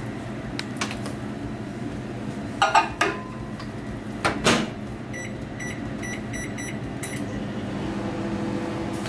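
Microwave oven being loaded and started: a couple of knocks as the bowl goes in and the door is shut with a clack, then a quick run of short keypad beeps, about two a second, as the defrost setting is entered. Near the end the oven starts running with a steady hum.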